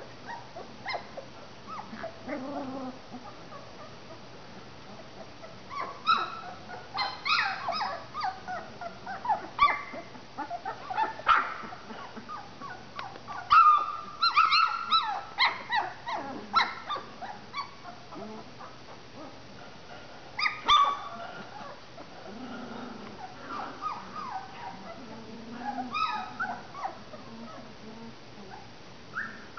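A litter of three-week-old Labradoodle puppies whimpering and yipping: many short high-pitched cries that come in bunches, with quieter stretches between.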